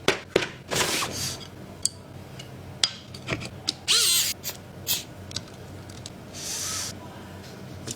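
A mechanical keyboard being handled: scattered sharp clicks and knocks with a few short rubbing, scraping sounds, one of them with a brief squeak about four seconds in.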